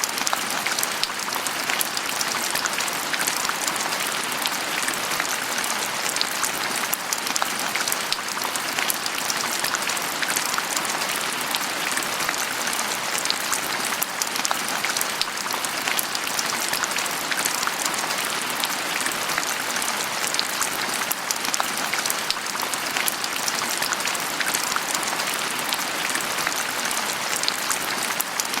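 Steady rain falling, a dense even patter of many drops striking a surface.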